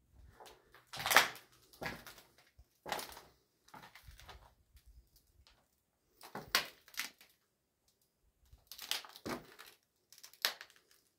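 Irregular footsteps crunching and scuffing over rubble and debris on a derelict floor, roughly one or two steps a second with pauses, the sharpest crunch about a second in.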